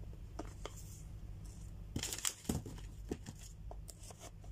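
A knife cutting open a small sealed cardboard earbuds box: scattered scrapes and clicks, with a louder burst of tearing and crinkling about two seconds in.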